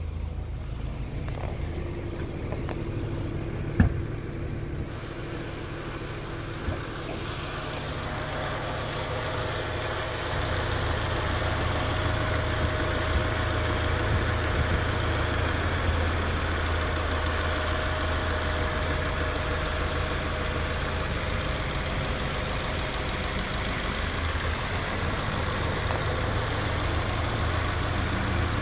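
Subaru boxer engine idling steadily. A single sharp click comes about four seconds in.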